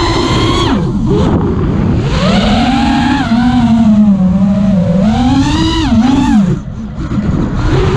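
FPV freestyle quadcopter's brushless motors whining. The pitch swoops up and down continually as the throttle changes, and the sound drops away briefly about two-thirds of the way in before picking up again.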